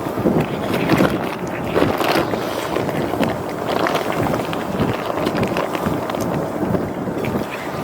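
Strong wind buffeting the microphone, a rough rumbling noise that rises and falls in gusts.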